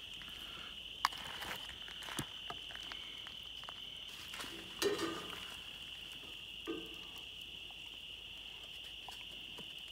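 Steady high-pitched chorus of crickets, with a few light clicks and taps of a fork against a plastic container and paper plate as coleslaw is served onto buns.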